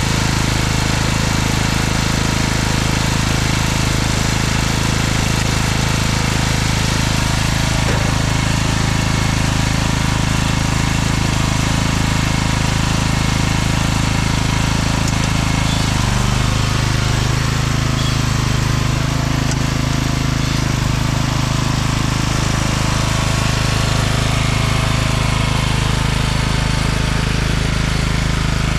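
Weedeater lawn tractor's small engine running steadily after a hard cold start. Its note shifts slightly about halfway through.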